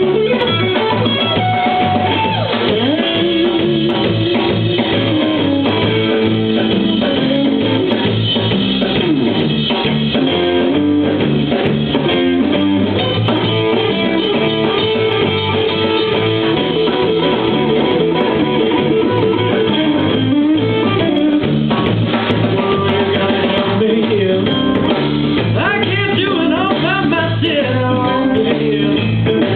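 Live blues band playing, with guitar to the fore over a steady, repeating bass line and drums.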